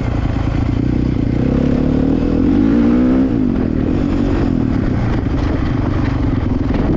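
Dirt bike engine running on a mountain trail ride. The engine revs up about two seconds in and drops back a second later.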